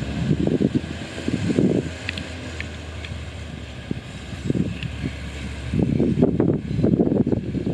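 Wind buffeting the microphone in irregular gusts, strongest near the end, over a steady low hum.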